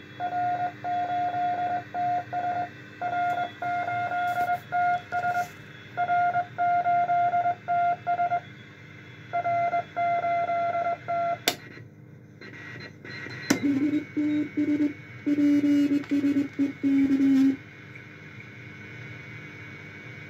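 Morse code received on a Bendix RA-1B aircraft radio receiver in CW mode: a keyed beat tone in irregular dots and dashes over steady receiver hiss and hum. After two sharp clicks partway through, the keyed tone comes back at a lower pitch, then stops a few seconds before the end, leaving only the hiss.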